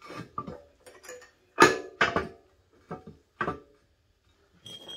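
A MaxJax M6K lift arm knocking and clanking against the column's pivot bracket as it is shifted to line up the pin holes: a string of separate metal knocks, the loudest about a second and a half in.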